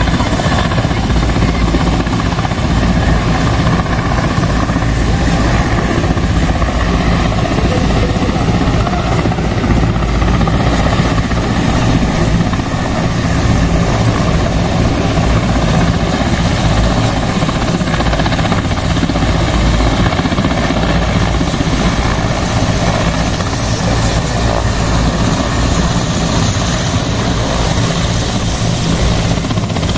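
Large military transport helicopter running on the ground with its main rotor turning, waiting to take off: a loud, steady rotor and turbine whir.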